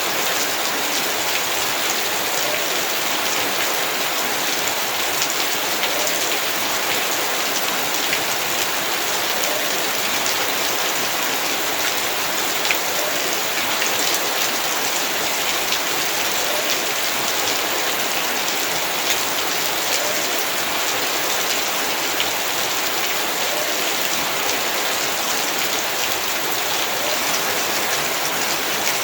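Heavy rain falling steadily, a dense patter of drops hitting the ground and surfaces.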